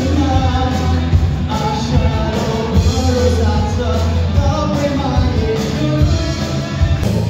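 Live rock band playing: a singer singing into a microphone over drums and electric guitars, amplified through a PA.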